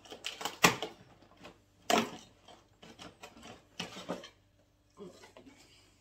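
Handling noise from a cardboard advent calendar and a small Pringles can: rustling with a few sharp knocks and clicks, the loudest about half a second and two seconds in, then a couple more near the middle.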